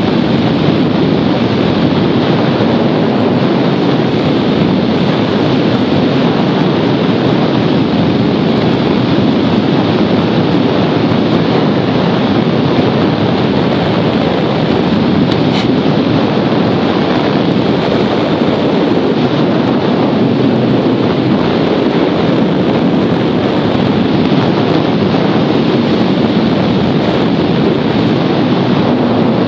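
Steady rushing wind noise buffeting the microphone.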